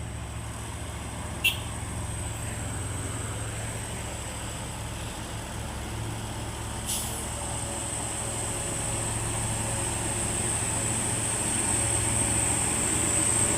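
Heavy diesel engine running steadily and slowly growing louder, with two short sharp clicks, one about a second and a half in and one near the middle, and a thin high whine that strengthens in the second half.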